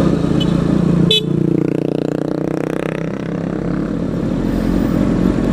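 Motorcycle engine running under the rider, heard from the helmet camera. About a second in the note drops suddenly with a click, then runs lower and softer as the bike slows behind traffic.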